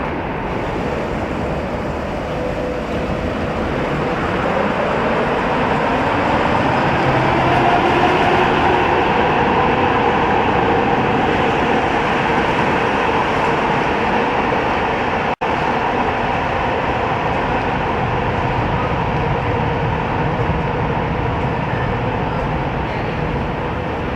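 Ganz UV tram running along the rails, a steady rumble with a faint whine that grows louder as it picks up speed about four to eight seconds in; the sound breaks off for an instant about fifteen seconds in.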